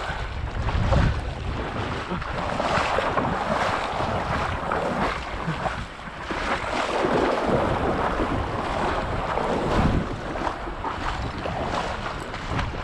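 Surf washing on the shore, with gusts of wind buffeting the microphone.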